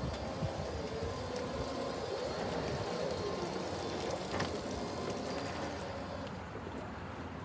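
Still R20-16 electric forklift driving: its electric drive motor whines, gliding up and down in pitch as it speeds and slows, over a hiss of tyres on a wet, gritty surface that fades about six seconds in. A few sharp clicks come through.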